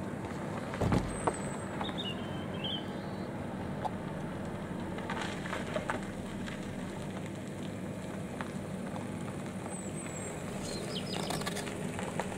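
Car engine running low and steady as the car drives slowly up close and past. There is a low thump about a second in and a few faint, short high chirps.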